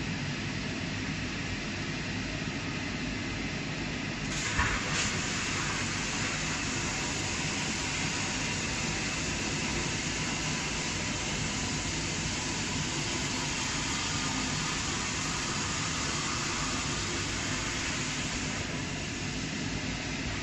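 Compressor scrap cutting machine running. About four seconds in, a knock, and then a steady hiss as the cutter works through a compressor's steel shell. Near the end the hiss drops back to the machine's hum.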